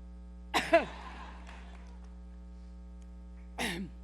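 A woman coughing: a sharp double cough about half a second in with an echoing tail, and a shorter cough near the end. A steady electrical hum sits under both.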